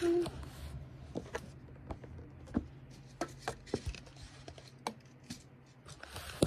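Handling noise from a phone being moved around while it records: scattered light taps and clicks over a faint low hum, with a short louder blip at the start.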